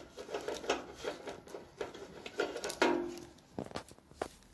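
Coiled power cord of an electric utility heater being handled and untied from its twist tie: irregular rustling and light clicks as the cord moves over the heater's thin metal case.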